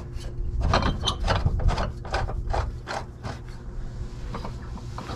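Hand ratchet wrench clicking in quick strokes, about three a second, while a suspension bolt is run in. The clicking is strongest in the first half and thins out near the end.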